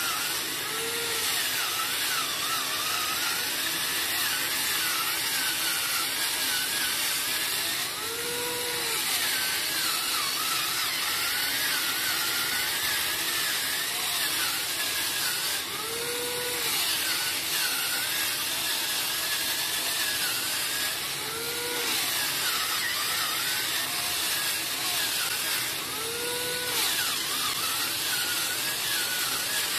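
Handheld electric coconut scraper running, its stainless steel dome cutter grating the white meat out of a coconut shell half: a steady whirring and scraping, with the motor's whine wavering up and down in pitch.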